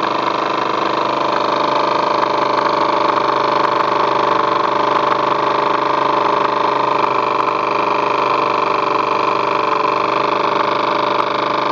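TVR1A twin-cylinder vertical model steam engine running steadily in a model steam launch, a continuous even mechanical sound that holds the same speed throughout.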